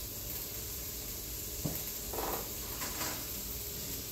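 Chicken sizzling in grease in a skillet, a steady hiss, with a click and a couple of short scrapes of a utensil against the pan about halfway through.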